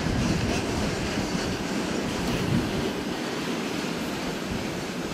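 Freight train moving on the rails: a steady low rumble of wheels on track.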